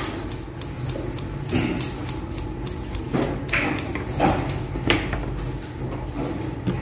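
Grooming scissors snipping through a rabbit's fur in quick, irregular clicks.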